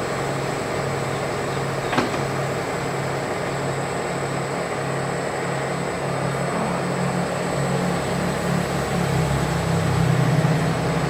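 Small electric motors of radio-controlled construction models running with a steady hum that swells near the end, with a single sharp click about two seconds in.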